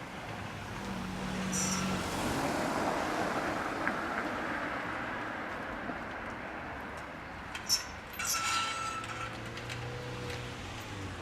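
A passing vehicle swells and fades, then about eight seconds in comes a sharp metallic clank followed by a brief rattling clatter with a ringing note, as of a steel fence gate across the railway track being swung shut.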